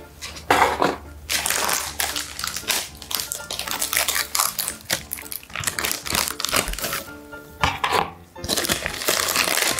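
Foil snack pouch of a Paqui One Chip Challenge crinkling and rustling as it is torn open and handled with gloved hands, along with light knocks of its cardboard box, over background music.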